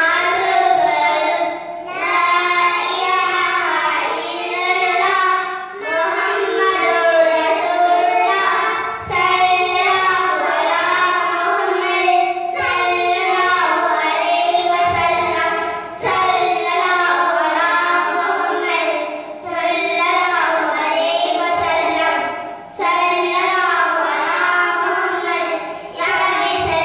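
Young children singing a song into microphones, in sung phrases a few seconds long with short breaks for breath between them.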